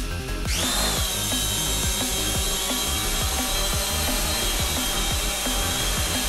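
Syma quadcopter drone's propellers spinning up about half a second in, a rising whine that levels off into a steady high buzz as the drone lifts off and hovers.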